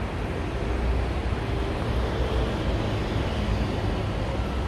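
Metro train running: a steady low rumble with an even hiss over it.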